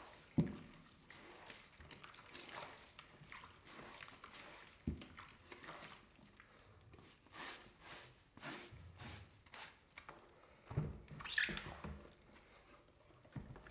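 Stiff brush and sponge scrubbing a wet leather sneaker in a basin of soapy water: irregular scratchy strokes and water swishing, with a few louder knocks and splashes, the biggest about half a second in and again around eleven seconds in.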